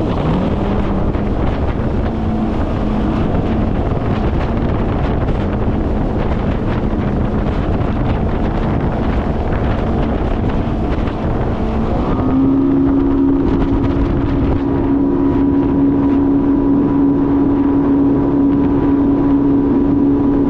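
Jet ski engine running steadily under way, with wind noise on the microphone. About twelve seconds in the engine note steps up and holds steady at higher revs as the freshly retuned engine is opened up.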